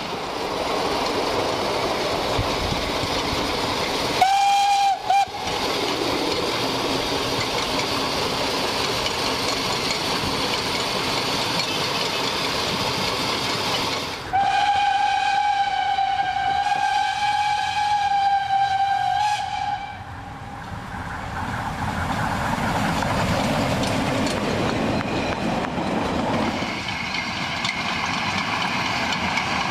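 Whistle of the Mh.6 narrow-gauge steam locomotive: a short blast about four seconds in, then a long blast on one steady note from about 14 to 19 seconds. Under it runs the steady noise of the moving steam train.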